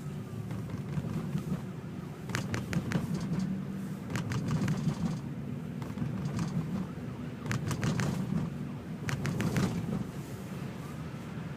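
A steady low vehicle hum, with four short groups of sharp clicks or crunches spread through it.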